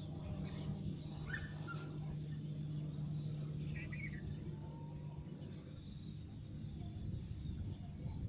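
A few short bird calls scattered over a steady low hum, at about one, four and five and a half seconds in.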